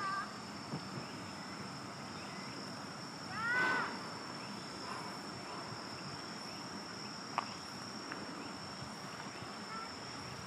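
Steady high-pitched insect trill, like a cricket's, with one short rising-and-falling call about three and a half seconds in and a single sharp click near the seven-and-a-half-second mark.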